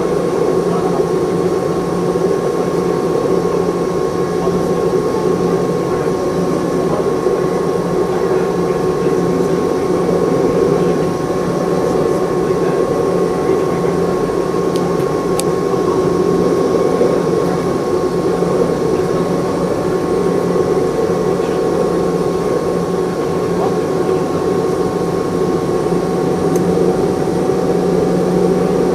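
Cabin noise inside a Boeing 717-200, its two rear-mounted Rolls-Royce BR715 turbofans running steadily: a constant rumble with steady whining tones, one rising slightly near the end.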